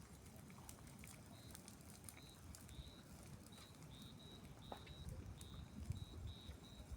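Faint outdoor quiet with an animal's short, high chirps, all on one pitch, repeating irregularly from about a second and a half in, over a low rumble and a few faint clicks.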